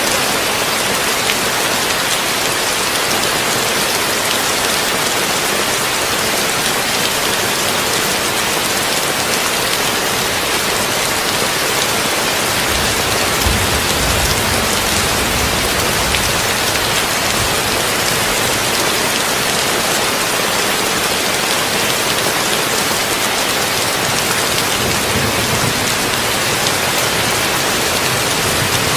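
Steady heavy rain on a tin roof. A low rumble of thunder swells about halfway through.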